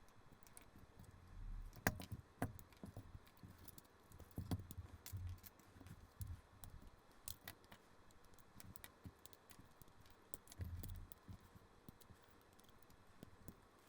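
Plastic LEGO bricks from the Creator 3-in-1 Supersonic Jet 31126 clicking and clattering faintly as the model is pulled apart by hand: irregular sharp clicks with a few soft thumps as pieces are set down.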